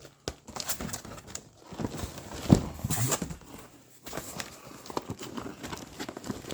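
Cardboard box and packaging being handled: irregular knocks and clicks with rustling, and one loud thump about two and a half seconds in.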